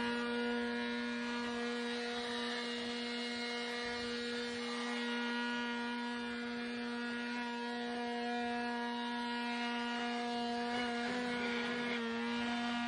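Small electric blower motor, likely a cordless leaf blower, running at a steady high-pitched whine while blowing out the cab, its pitch wavering slightly about eleven seconds in.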